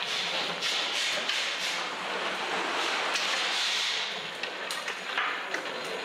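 The hose reel of a Meto spray robot turning as black spray hose winds onto its drum: a steady rushing, rubbing running sound with scattered small clicks.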